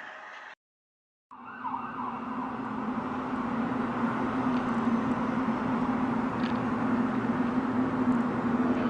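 A sudden cut to silence, then a steady low droning hum with a hiss above it, slowly growing louder: one of the unexplained sounds heard from the sky.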